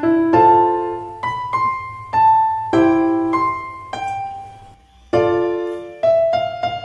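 Background music: a piano playing a slow melody of single notes and chords, each fading after it is struck, with a short lull about five seconds in.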